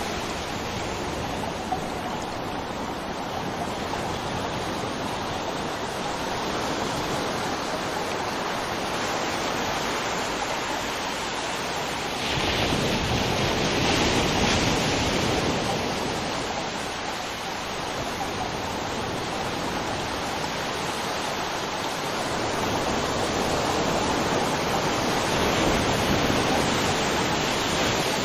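River water flowing and rushing, a steady roar that swells louder for a few seconds about twelve seconds in and again near the end.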